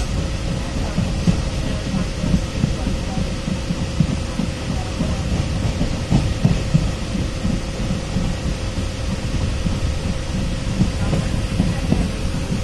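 Passenger train running at speed, heard from inside the coach by an open window: a steady rumble and rattle of the wheels on the track, with a faint constant hum.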